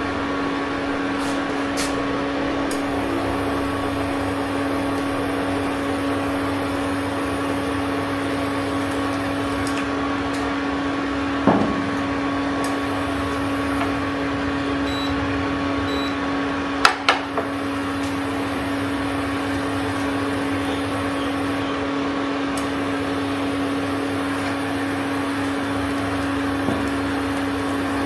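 Portable induction cooktop running under a pan: a steady electrical hum with its cooling fan. About 11 seconds in comes a single knock, and around 17 seconds a few sharp clicks, after which a higher whine drops out.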